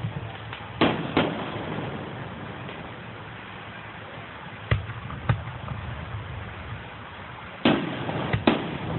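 Fireworks bursting: six sharp bangs in three pairs, about a second in, near the middle and near the end, over a steady background rumble.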